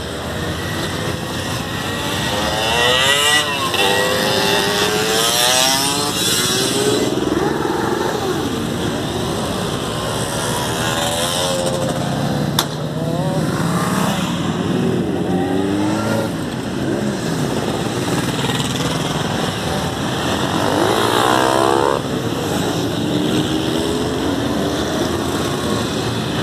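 A procession of motorcycles riding past one after another, engines revving, each rising then falling in pitch as it goes by. A single sharp click about halfway through.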